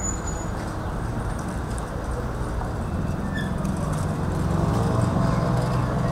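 Steady city traffic noise: a low rumble of motor vehicles, with bicycles passing close by. It swells a little around four to five seconds in.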